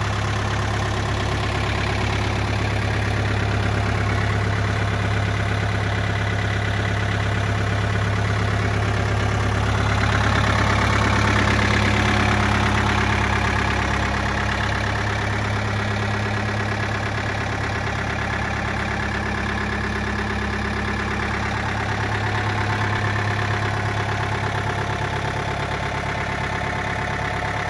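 Mitsubishi MT21 compact tractor's diesel engine idling steadily, growing a little louder about ten seconds in and easing back a few seconds later.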